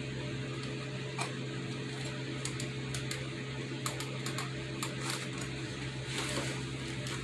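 Light, irregular clicks and taps of small parts and packaging being handled, over a steady low hum.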